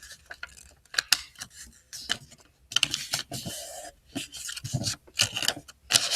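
Sheet of paper being handled and folded on a desk: scattered clicks, light taps and short rustles as it is creased and pressed flat, with a longer rustle about three seconds in.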